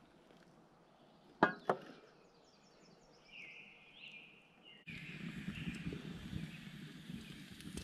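Two sharp knocks, close together, as an aluminum mess tin is set down on a wooden table. After a sudden cut, a wood campfire crackles and hisses steadily.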